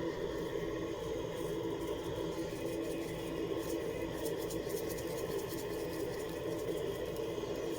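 A steady machine hum, even in level and pitch, with a few faint ticks.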